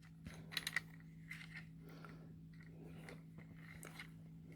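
Faint clicks and light rustling of a plastic action figure being handled and turned in the hands, a few sharper clicks in the first second, over a steady low hum.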